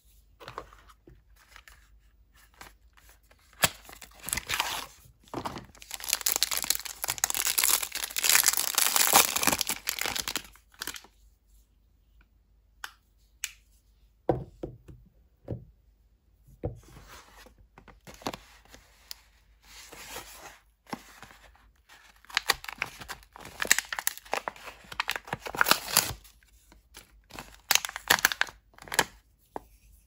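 Hands tearing open a kraft-paper soap pack and crinkling its plastic wrap, in several long rasping stretches with short clicks and taps between them.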